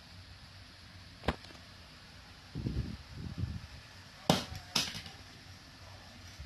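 Handling noise as a hand moves a desktop condenser microphone and its cable: a sharp click, then a few low thumps, then two sharp clicks about half a second apart.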